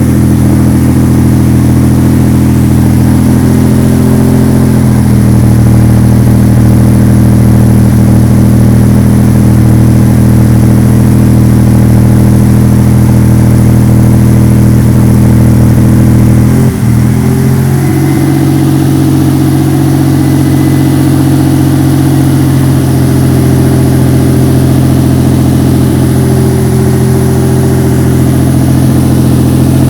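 Lamborghini Diablo V12 engine idling steadily and loudly, with a brief stumble in its note about 17 seconds in before it settles back to a steady idle.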